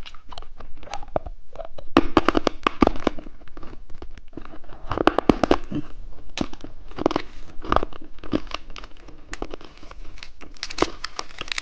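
Plastic lollipop wrapper crinkling and tearing as it is unwrapped, in irregular bursts of sharp crackles.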